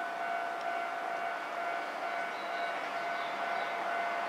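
Railway platform ambience with a steady tone held at one pitch with overtones over a faint even background noise, as a train approaches from far down the line.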